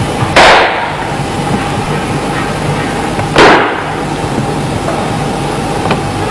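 Two sharp, loud impacts about three seconds apart, from a Chen-style Tai Chi performer's explosive power-release movements, over a steady background rumble.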